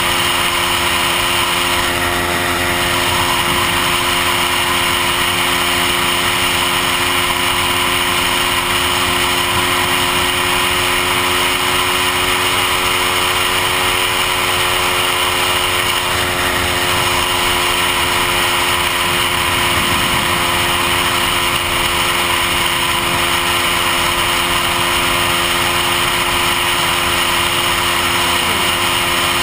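Lambretta scooter with a Rayspeed Rapido 225 two-stroke kit cruising at a steady speed, its engine note holding even, with wind and road noise over a helmet-mounted microphone. The owner reckons the tune runs slightly rich as it comes onto the power jet, with a small misfire.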